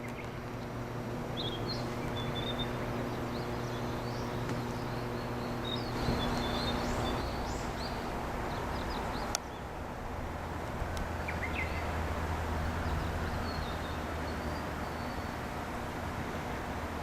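Small birds chirping in short high calls over a steady outdoor hum and noise wash. The chirps are busiest in the first seven seconds and come back faintly later. There is a sharp click about nine seconds in.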